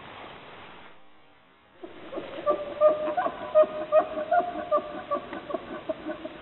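Bull elk bugling close by: a pitched call that starts about two seconds in and is broken by a rapid series of short grunting pulses.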